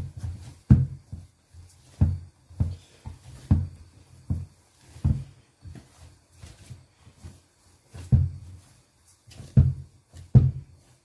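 Hands kneading soft pastry dough on a tabletop: a series of dull thumps as the dough is pressed and pushed down, roughly one every second and uneven in strength.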